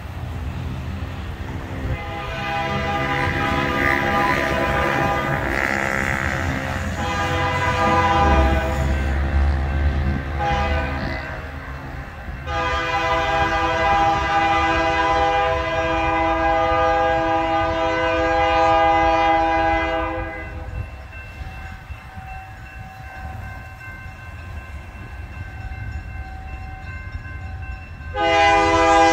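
Great Lakes Central Railroad locomotive air horn sounding the warning for a road crossing as the train approaches: several long blasts, then a short blast near the end, over a low rumble.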